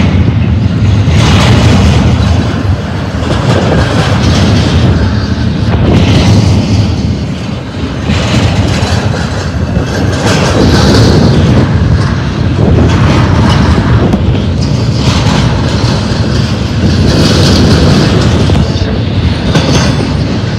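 Intermodal freight train's cars rolling past: a loud, steady rumble of wheels on rail with a clatter every second or two.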